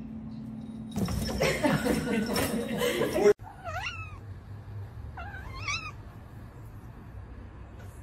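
A grey cat meows twice while being scratched on the head: two short calls about a second and a half apart. Before that, a loud, busy burst of sound lasting about two seconds cuts off abruptly.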